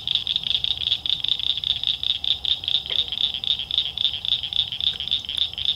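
Night chorus of calling animals: a steady, high-pitched, rapidly pulsing trill, several pulses a second, with a brief faint voice sound about three seconds in.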